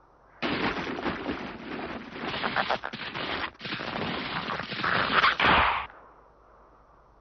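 A dense burst of rapid crackling, clattering noise, a cartoon sound effect, lasting about five and a half seconds and cutting off sharply.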